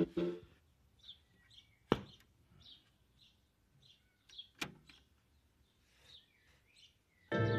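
Music from the stereo cuts off right at the start. In the quiet that follows come two sharp clicks of hi-fi front-panel switches, about three seconds apart, with faint bird chirps between them. Music comes back on near the end.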